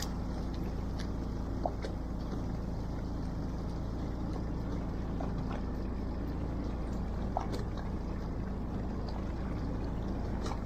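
Fishing boat's engine running with a steady low drone, with a couple of faint ticks.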